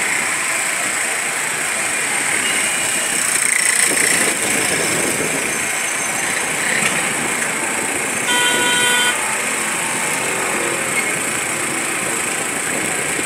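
Street traffic noise, with motorcycles and cars passing. A vehicle horn honks once, for just under a second, about eight seconds in.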